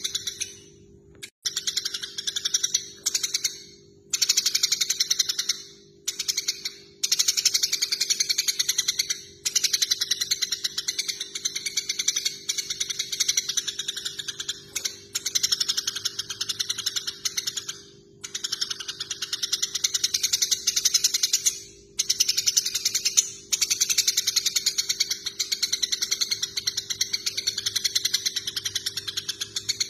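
Eurasian tree sparrows chattering in fast, excited trains of chirps, the call given by sparrows fighting. The runs last several seconds each, broken by short pauses, over a steady faint low hum.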